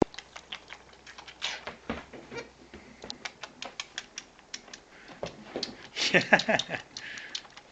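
Baby goat suckling hard on a lamb feeder bottle's rubber nipple: quick irregular sucking clicks all through, with a short voice-like sound about six seconds in.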